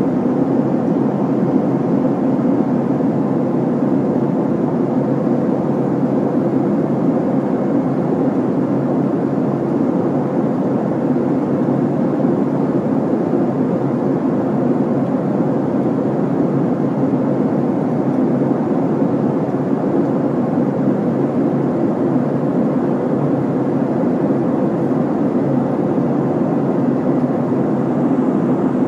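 Steady jet-airliner cabin noise on the upper deck of a Boeing 747-400 in flight: an even, unchanging rush with a low drone and a faint steady tone above it.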